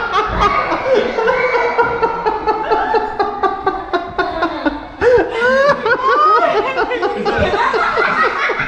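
A man laughing hard in quick bursts over several children shrieking and screaming in fright.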